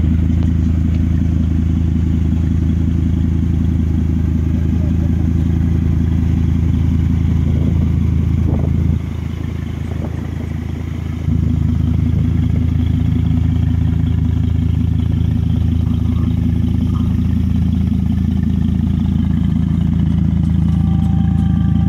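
The five-cylinder engine of a 2005 Chevrolet Colorado idling steadily with a low, even sound. It dips in level for about two seconds midway, then comes back.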